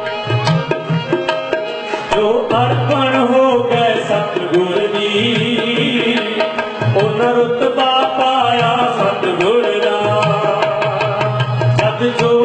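Harmonium playing a melody over tabla accompaniment, with sharp finger strokes on the drums and recurring low booms from the bass drum. It is an instrumental interlude between sung verses of a Punjabi devotional bhajan.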